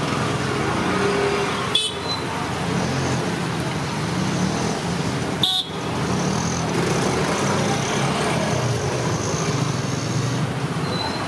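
Street traffic noise with car horns tooting, over the bubbling of oil around jalebis frying in a large iron kadai. Two sharp clicks, about two seconds in and again about five and a half seconds in.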